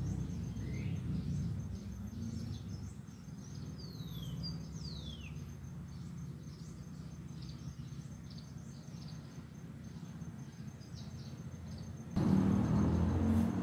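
Small birds calling from a treetop: scattered short chirps and two clear downward-sliding whistles about four to five seconds in. A faint steady high pulsing tone and a constant low rumble run underneath, and the rumble jumps louder near the end.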